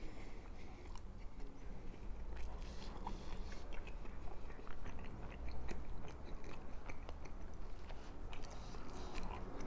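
A person chewing a chilaquiles torta close to the microphone: a bolillo roll filled with sauced fried tortilla chips. Many small, scattered crunches and mouth clicks.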